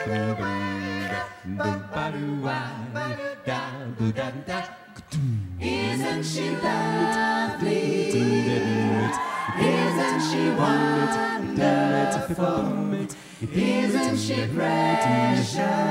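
A mixed-voice a cappella ensemble singing in close harmony through microphones, with a sung bass line underneath. About five seconds in, the bass voice slides down and back up.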